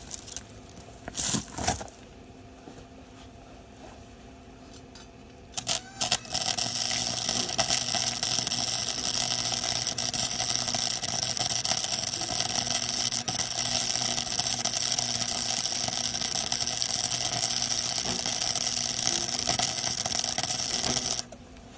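Wire-feed welder's arc crackling steadily for about fifteen seconds, after two short starts and a few clicks before them. The wire feed is set too low, by the welder's own judgment that he needs more wire.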